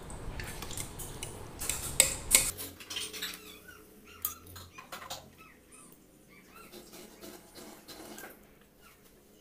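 Steel ladle clinking and knocking against steel pots and bowls as batter is scooped, with two sharp knocks about two seconds in, then quieter scattered sounds.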